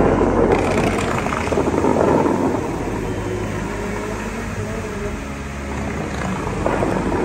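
Fountain water jets hissing upward and spray splashing back down onto the lake, surging about two seconds in and again near the end, over a steady low motor hum.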